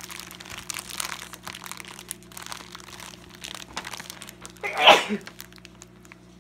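Clear plastic bag of potted aquarium plants crinkling as it is handled, with one short, loud sneeze about five seconds in.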